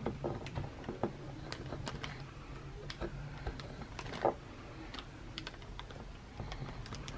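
Scattered light clicks and scrapes of a serrated knife scoring X marks into chestnut shells on a wooden cutting board, with the nuts tapping on the board; one louder knock about four seconds in.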